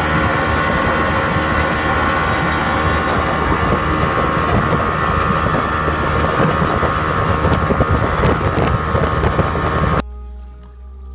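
Open motorboat running at speed: a loud, steady rush of engine, wind on the microphone and spray off the hull. It cuts off suddenly about ten seconds in, giving way to quieter music.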